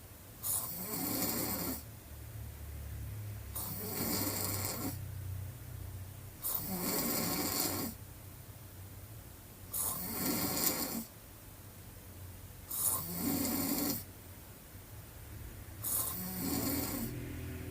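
A woman snoring loudly through a wide-open mouth, with about six snores, one every three seconds, and quieter breathing between them.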